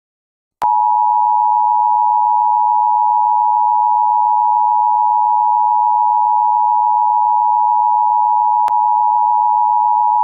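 Emergency Broadcast System attention signal: a steady two-tone electronic alert tone, the 853 and 960 Hz pair, starting about half a second in and held unbroken for about ten seconds.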